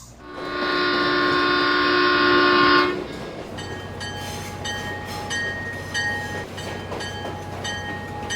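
Train horn sounding a multi-note chord held for about three seconds, then a train running with regular clicks.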